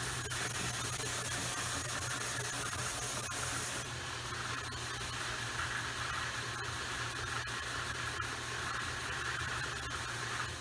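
Belt sander running with a 100-grit belt, sanding the bottom edge of a wooden moulding: a steady hiss over a low motor hum, the hiss thinning slightly about four seconds in.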